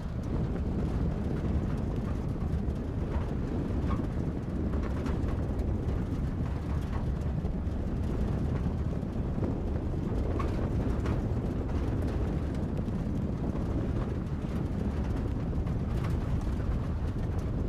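A car driving, heard as a steady low rumble of engine and tyre noise with scattered light ticks and rattles.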